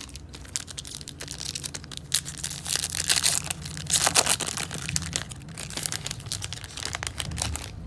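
Crinkly foil wrapper of a 2008 Upper Deck football card pack being torn open and crumpled by hand, a dense crackle that is loudest around the middle.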